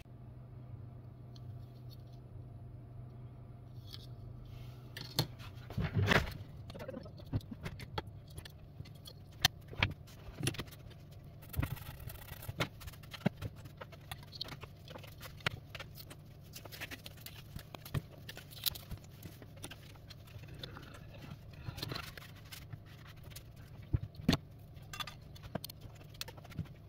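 Scattered clicks, taps and light clatter of disassembled smartphone parts being picked up and set down on a silicone repair mat, over a steady low hum.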